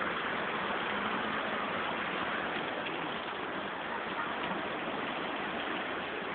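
Steady rush of a rocky mountain stream, water pouring and splashing between boulders.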